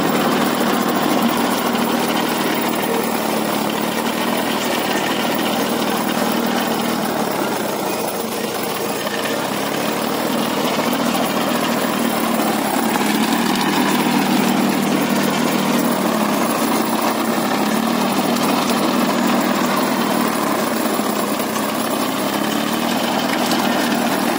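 Small tractor's engine running under load while its PTO-driven rotavator's tines churn through soil and banana stumps. It makes a loud, steady, dense clatter, and the engine note wavers slightly.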